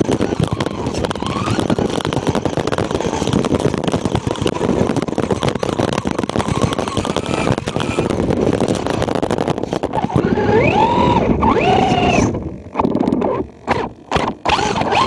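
Brushless electric motor of a Traxxas Rustler RC truck whining under a steady noise of the truck running over a snow-packed road. The whine rises and falls in pitch twice as the truck speeds up and lets off. Near the end the sound cuts out several times briefly.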